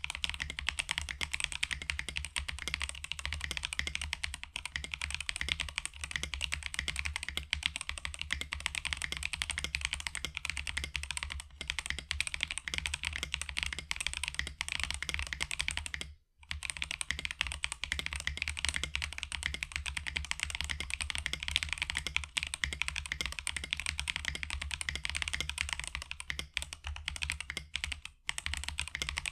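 Typing sound test on a Feker JJK84 T1 75% mechanical keyboard kit with stock, factory-lubed Epomaker Budgerigar tactile switches and Akko ASA Clear V2 keycaps, in a frosted acrylic case with a clay mod and lubed plate-mounted stabilizers. Steady, fast typing with a brief pause about halfway through.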